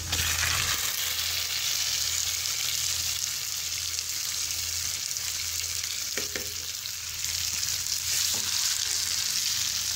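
Marinated chicken pieces sizzling steadily as they go into hot oil and light-browned onions in a nonstick kadai, with a silicone spatula stirring and tapping lightly twice.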